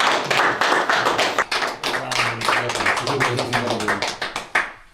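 A group of people clapping their hands in quick, dense applause with voices murmuring underneath. It fades out near the end.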